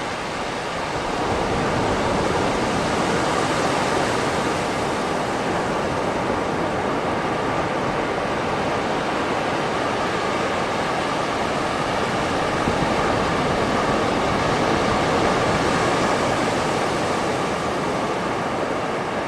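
Waves washing onto a beach in a steady, unbroken rush of surf that grows a little louder about a second or two in, then holds even.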